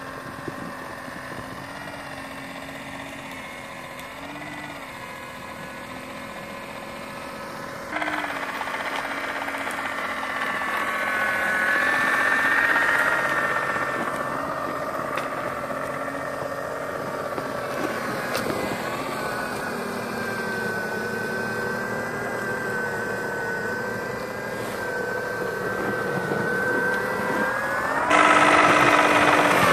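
A 3D-printed mini snow blower on a remote-control snowcat, its motor and impeller whining as it clears snow. The pitch wavers and dips as the load changes, and it gets louder about a quarter of the way in and again near the end.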